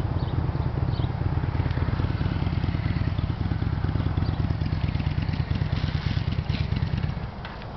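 Motorcycle engine running with a loud, low, rapidly pulsing rumble that drops off sharply about seven seconds in.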